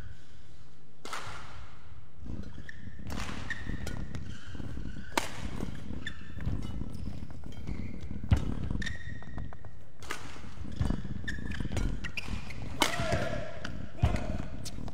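Badminton rally: rackets striking the shuttlecock in sharp smacks every second or two, with court shoes squeaking briefly on the court mat between shots.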